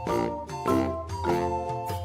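Background music for children: a bright, bouncy tune with plucked or mallet-like notes over a steady bass, about two notes a second.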